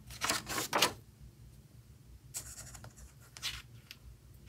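Sketchbook paper rustling as a page is turned: a cluster of quick swishes in the first second, then two shorter ones later.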